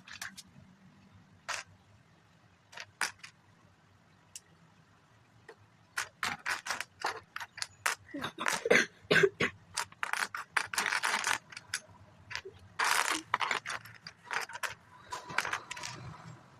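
Plastic Lego pieces and their bags being handled: a few scattered clicks, then from about six seconds in a dense run of rattling, rustling and clicking.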